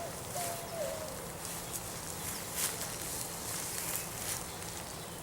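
Rustling and light footsteps on leaves or ground, with a short bird call about half a second in.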